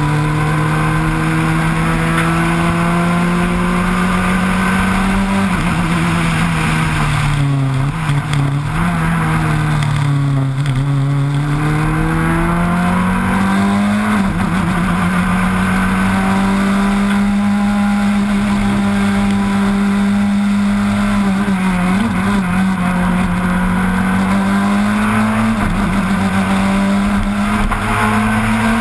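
Proton Super 2000 rally car's two-litre four-cylinder engine running hard at high revs. Its pitch drops and climbs back several times as the driver lifts off and gets back on the throttle for corners. A steady rush of wind and road noise runs under it.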